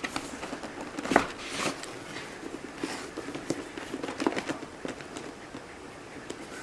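Hands handling computer parts and cables: scattered light clicks and rustles, the loudest about a second in.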